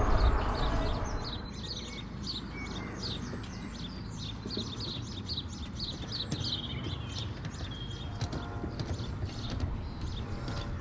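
A songbird singing a quick run of short, high chirps, which fades out after about seven seconds, over a steady low outdoor rumble.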